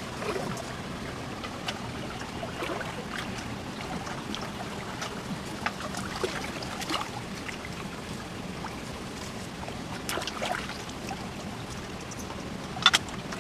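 Stream water sloshing and splashing as a person wades waist-deep and works their hands through it, with scattered small splashes and clicks. A sharp knock near the end is the loudest sound.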